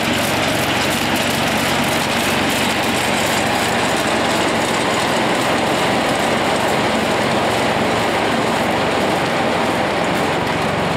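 CS-1 gyratory sifter, an all-metal stacked-deck machine, running while sifting flour and coffee beans: a steady mechanical rumble with a fine continuous rattle.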